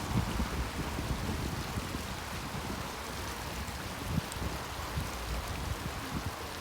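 Gentle sea waves washing steadily against the shore, with irregular low gusts of wind buffeting the microphone.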